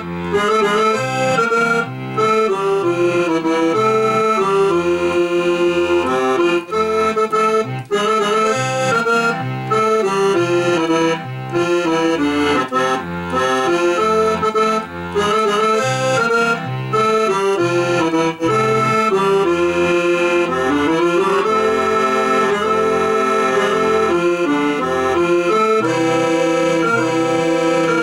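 Roland digital piano accordion (V-Accordion) playing a waltz: a melody on the keyboard over the left-hand bass buttons sounding a bass note alternating with chords in a steady rhythm.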